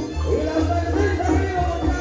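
Live merengue típico band playing: accordion melody over a pulsing bass line and steady percussion.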